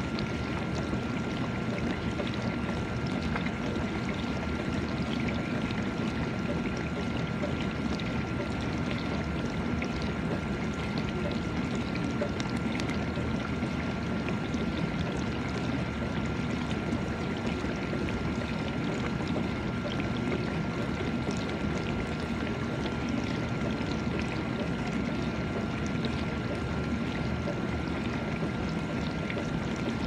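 GE dishwasher running mid-cycle: water spraying and sloshing steadily inside the tub over the hum of the wash pump, with a thin steady whine.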